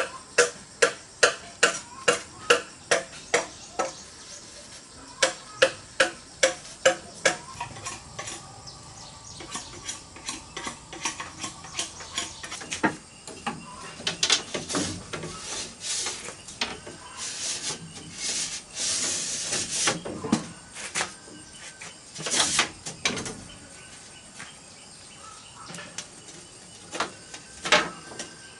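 A rapid series of sharp, evenly spaced chirps, about three a second, for the first several seconds. Then bamboo strips scrape, swish and rattle as they are threaded through a woven bamboo door panel, with a few sharp knocks near the end.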